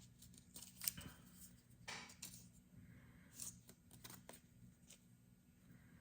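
Faint handling sounds of a smartphone and screen-protector pieces: a sharp click about a second in, a short scrape about two seconds in, and a few lighter ticks.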